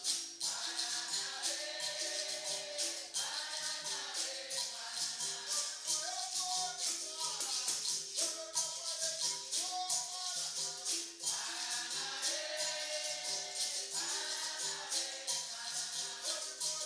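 Capoeira roda music: berimbaus with caxixi rattles and pandeiro jingles keeping a steady repeating rhythm, under group singing in phrases of a second or two.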